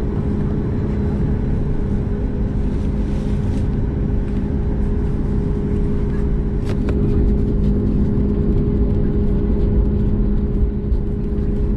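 Cabin noise of a Boeing 737 MAX 8 taxiing slowly, its CFM LEAP-1B engines at taxi idle: a steady hum over a low rumble, with one brief click a little past halfway.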